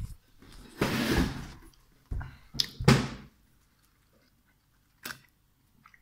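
Handling noise from a phone camera being passed from one person to another: a rustling rub about a second in, then a few sharp knocks, the loudest near three seconds, and a small click near the end.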